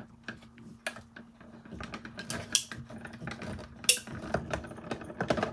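Hand-cranked die-cutting machine being turned, its gears and rollers clicking unevenly as the cutting plates with the metal die go through, with sharper clicks about two and a half and four seconds in.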